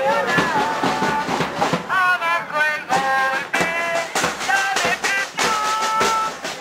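Music: voices singing over a steady drumbeat, as from a marching protest crowd with drums.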